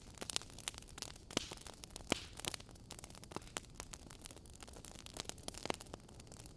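Wood fire burning in a fireplace: a soft steady hiss with logs crackling and popping at irregular moments, a few sharper pops standing out.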